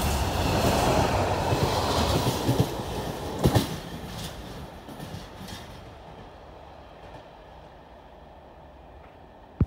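A train running past on the track, wheels clacking over the rail joints, then fading away over a few seconds as it recedes. A single sharp click near the end.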